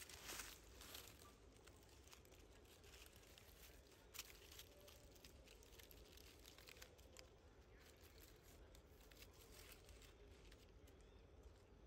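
Near silence with faint, scattered crackles and rustles, like dry fallen leaves being stirred.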